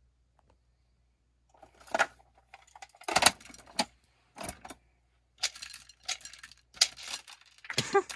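Handling noise from small objects being moved about on a workbench: a run of irregular clattering and jingling knocks that starts about a second and a half in.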